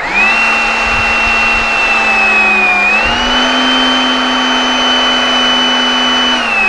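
Enerpac electric hydraulic pump motor starting abruptly and running steadily with a high whine, the advance button held while the relief valve is set to the target pressure. Its pitch dips and then steps up slightly about three seconds in.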